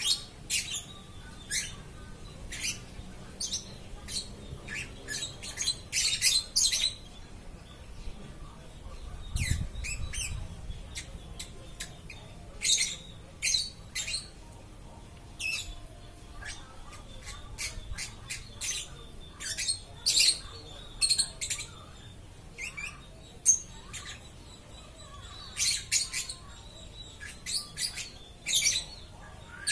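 Lovebird calling nonstop: a long series of short, sharp, high-pitched chirps and squawks, coming in irregular clusters.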